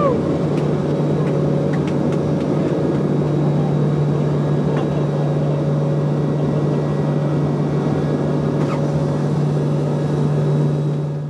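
Steady cabin drone of a C-2A Greyhound's twin T56 turboprop engines and propellers, heard from inside the cargo cabin, with a strong constant low hum under a wide rush of noise.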